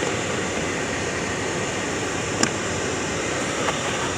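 Steady rush of a car's climate-control blower and running engine heard from inside the cabin, with one sharp click about two and a half seconds in.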